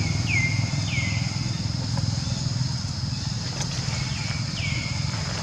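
Steady low engine-like rumble. Over it come four short high calls that slide down in pitch and level off, two about a second apart near the start and two more near the end.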